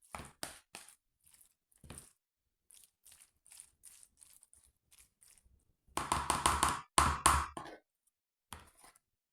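A run of short kitchen knocks and taps, like utensils handled against a pot, with a dense, louder burst of clattering about six seconds in.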